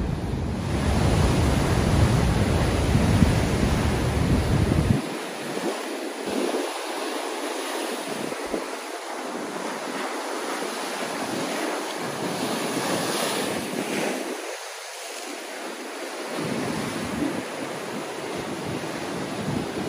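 Ocean swell breaking and washing over a rock ledge. Heavy wind rumble on the microphone for about the first five seconds.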